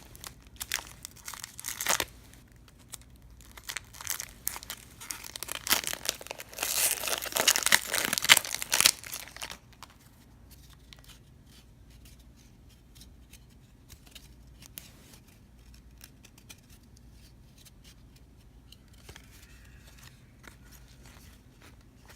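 A baseball card pack's wrapper being torn open and crinkled for roughly the first nine seconds, then much quieter, faint light ticks of cards being handled and leafed through.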